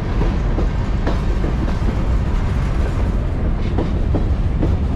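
Freight train's covered hopper cars rolling past close by, a steady heavy rumble with wheels clattering over the rail joints. A few short metallic squeaks sound through it.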